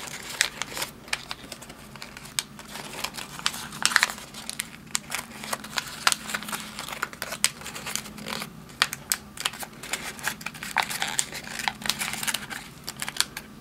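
Origami paper being folded and creased by hand: irregular crinkling and crackling as the flaps of the vase are opened and pressed flat.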